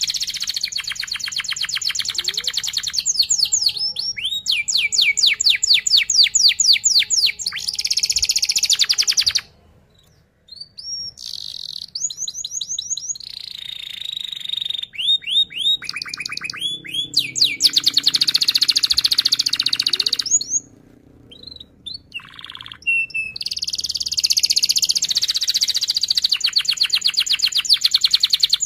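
Domestic canary singing a fast, tight rolling song: long runs of rapidly repeated notes and trills, stopping briefly twice along the way.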